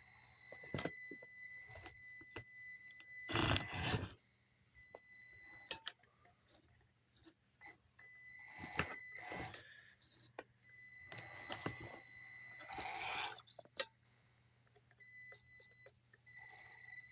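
Electric motor of a Traxxas TRX-4M RC crawler whining in a thin, high, steady tone that comes and goes as the truck is driven. Several louder bursts of scraping and clattering, as tyres and body work over the cardboard ramps.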